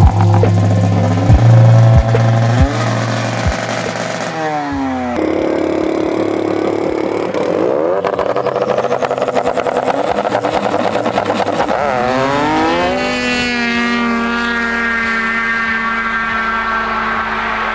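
Snowmobile engines revving hard, their pitch falling steeply about four seconds in, then climbing again around twelve seconds and holding at high revs.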